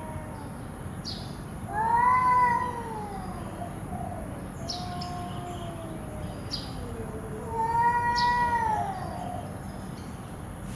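Cat-fight yowling: two loud, drawn-out yowls, each rising and then falling in pitch, about two seconds in and again near eight seconds, with a quieter, lower wavering yowl between them and a few short sharp noises.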